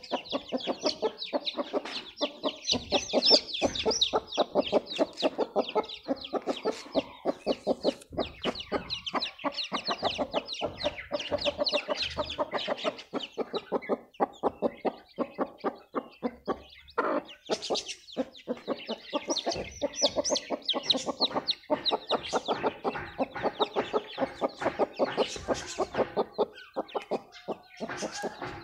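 A hen clucking among her brood of chicks, which peep continuously, a rapid stream of short high calls several times a second mixed with the hen's lower clucks.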